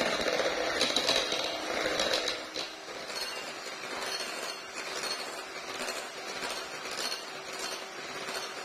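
Electric hand mixer running steadily, its steel beaters whirring through soft batter and clinking against the bowl. About two and a half seconds in, the sound drops noticeably quieter.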